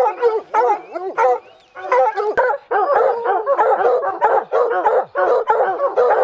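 Several hunting hounds baying treed, rapid overlapping barks with hardly a break, a short lull about a second and a half in: the hounds are holding a mountain lion up a tree.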